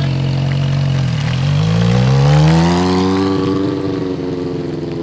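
Motorcycle engine running, easing off about a second in, then revving up with rising pitch for about two seconds as it accelerates, then holding and slowly dropping as it gets quieter.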